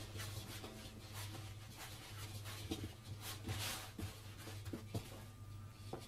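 Hands working soft griddle-bread dough in a metal bowl: faint rubbing and pressing with a few soft knocks near the middle, over a low steady hum.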